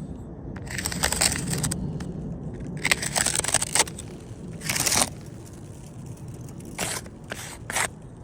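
Gritty scraping and crunching in irregular bursts: three longer ones in the first five seconds, then three short ones near the end.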